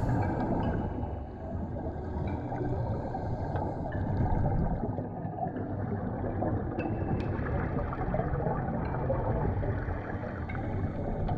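Underwater sound picked up by a camera: a low, muffled rush of water with gurgling from scuba divers' exhaled bubbles.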